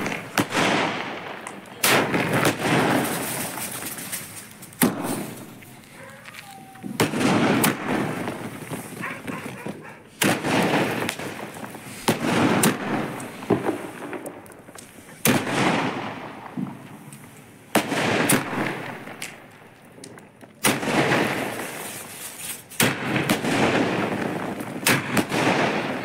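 Aerial fireworks bursting overhead: about a dozen sharp bangs, two to three seconds apart, each trailing off in a fading crackle.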